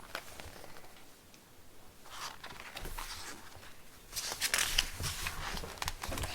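Faint paper rustling from the pages of a picture book being handled.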